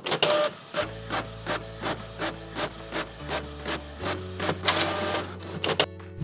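Inkjet printer running, its print carriage moving along the rails with a regular chattering beat of about three strokes a second over a low steady hum that shifts pitch a few times. It stops shortly before the end.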